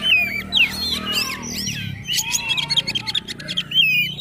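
Kacer poci (magpie-robin) singing a fast, unbroken string of short whistled notes that slide up and down, mixed with sharp clicks.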